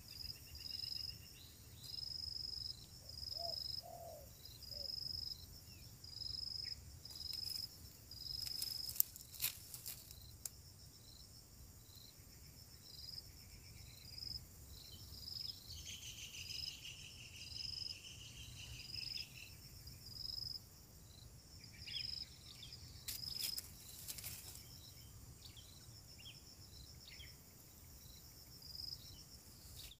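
Insect chirping in a steady rhythm, about one high chirp a second, with a few faint bird calls and a couple of sharp rustling clicks.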